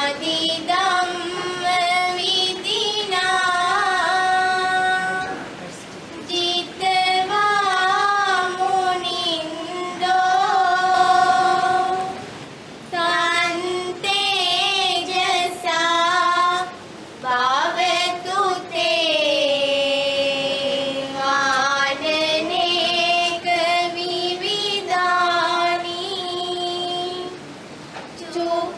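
High voices singing a slow, unaccompanied melody in long held phrases with short breaks between them.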